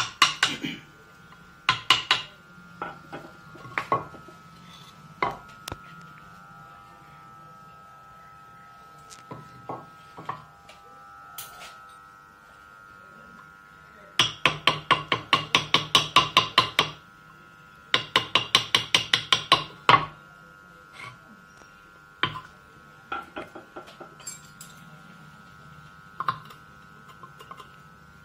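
Hammer striking a carving chisel into wood: scattered single taps, then two quick runs of about five taps a second, each lasting two to three seconds, past the middle.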